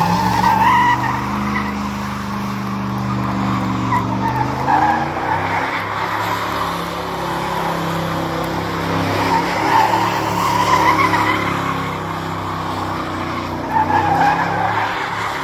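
Ford F-150 pickup doing a burnout: the engine is held at high revs, its pitch wavering, while the spinning tires squeal on the pavement. The squeal swells in waves, loudest at the start, around ten seconds in and near the end.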